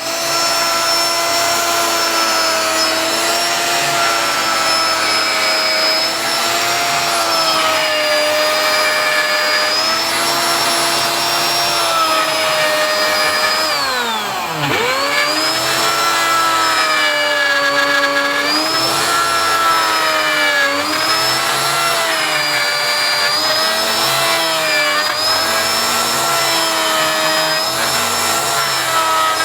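A high-speed electric motor runs steadily with a whine whose pitch wavers slightly. About halfway through, its speed drops sharply and then picks up again within about a second.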